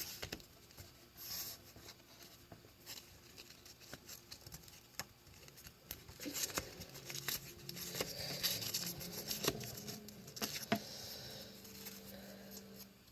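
Paper rustling and crinkling with scattered light taps and clicks as a construction-paper handle is wrapped around a folded paper blade.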